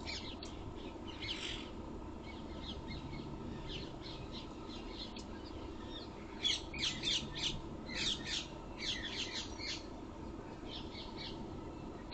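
Birds calling in quick runs of short, high chirps and squawks, busiest in the second half, over a steady background hum.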